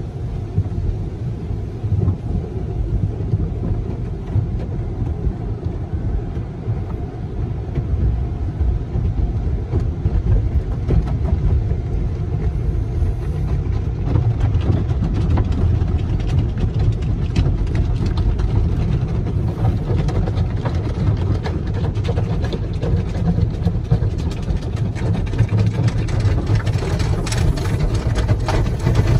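Automatic car wash heard from inside the car: the steady low rumble of cloth brushes and water spray working over the body and windshield, muffled by the cabin. Crackling spatter against the glass grows denser from about a third of the way in and is thickest near the end.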